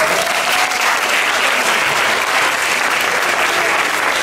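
Audience applauding, a dense steady clapping throughout.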